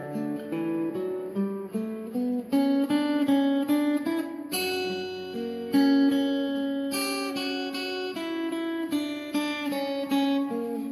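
Acoustic guitar playing a slow melody over chords, a mix of plucked notes and strums.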